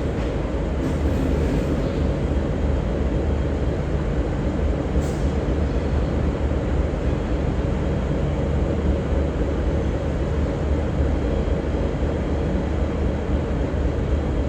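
Diesel train engines running with a steady low rumble. A brief faint hiss comes about five seconds in.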